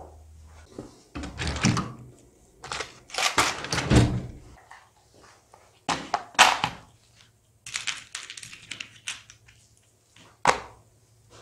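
Hands working with metal front-fork parts on a wooden workbench: an irregular run of knocks, clatters and scrapes as components are picked up, moved and set down, with the loudest clatters in the first few seconds.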